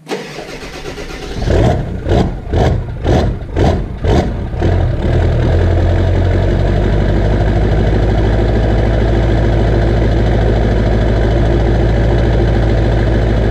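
Ford 7.3 Powerstroke turbo-diesel V8 cold-starting, heard at its 4-inch exhaust tip: it turns over and fires at once, pulsing loudly and unevenly about twice a second for a few seconds as it catches, then settles into a steady idle about five seconds in. A quick, clean start in freezing weather after only a short glow-plug wait.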